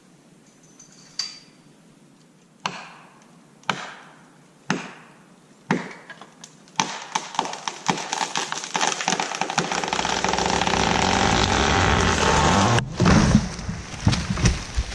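Red maple being felled: about five sharp strikes on wood roughly a second apart, then the trunk cracking and splintering, building into a long, loud crash through branches. Heavy thumps near the end as the tree hits the ground.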